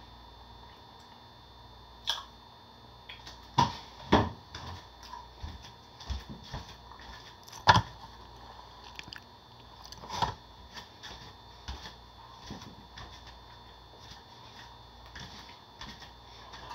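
Irregular knocks, clicks and handling noises from a person moving about close to the microphone, a few of them loud, over a faint steady hum.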